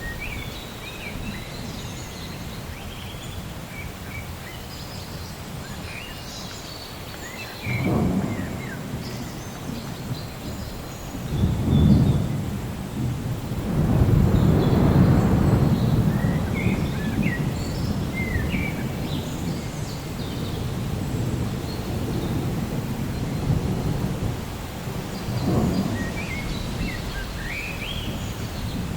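Thunder rumbling in several rolls: a short clap about 8 seconds in, a sharper one about 12 seconds in, a longer rolling swell just after, and another rumble near the end. Steady rain runs underneath, and birds chirp briefly throughout.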